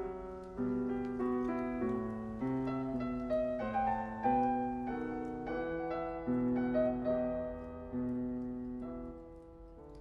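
Slow piano music, notes and chords changing about once a second, dying away near the end.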